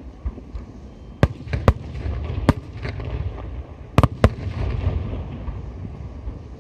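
Aerial firework shells bursting overhead: a run of sharp bangs, two close together about four seconds in, over a steady low rumble of further bursts.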